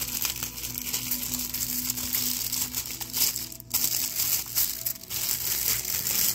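Plastic packaging crinkling and rustling in irregular bursts as items are handled.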